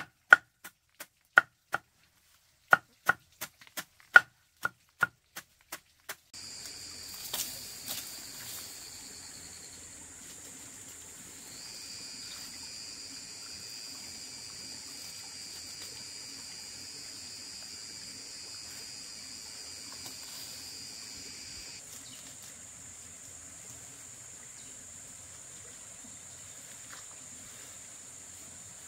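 A quick run of about fifteen sharp knocks over six seconds, then insects droning steadily with a high whine, joined by a second, lower whine that stops about two thirds of the way through.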